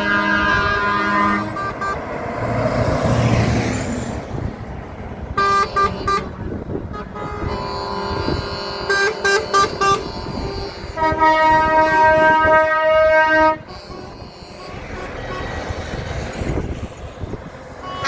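Truck air horns on passing show lorries blasting one after another, several notes sounding together, over the rumble of diesel engines driving by. There is a run of short toots about nine to ten seconds in and a long held blast just after.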